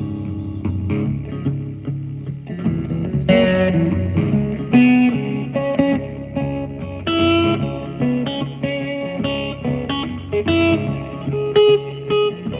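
Guitar being picked: single plucked notes ringing out over sustained low bass notes.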